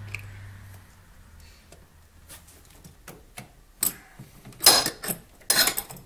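Wrench clicking and clinking against the brass choke nuts and metal carburetor fittings as the choke plungers are tightened down, with scattered light ticks and then a few sharp clanks near the end.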